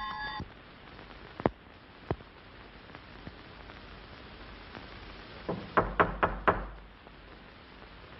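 A ringing doorbell cuts off just after the start, then knocking on a door: two single knocks, and a few seconds later a quick run of about five knocks, over the steady hiss of an old film soundtrack.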